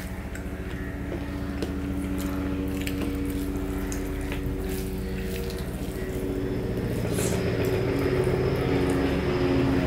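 A steady mechanical hum from a motor, louder over the last few seconds. Under it, a hand mixing rice and curry on a steel plate makes soft squishing, with faint clicks and chewing.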